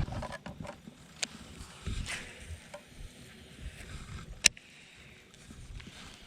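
A few sharp clicks and knocks of fishing gear on a small boat, the loudest about four and a half seconds in, over a low rumble.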